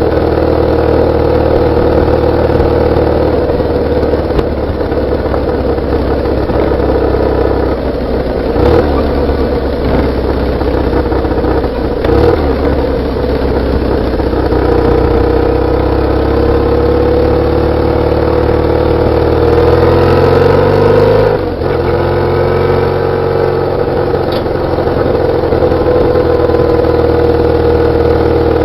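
BMW R850R's flat-twin boxer engine running under way on the road, heard through its exhaust. The revs climb steadily for a couple of seconds about twenty seconds in, then drop suddenly with a gear change, and pick up again.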